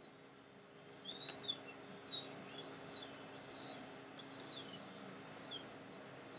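Small birds chirping in quick high calls with short pitch slides, starting about a second in, over a faint steady hum.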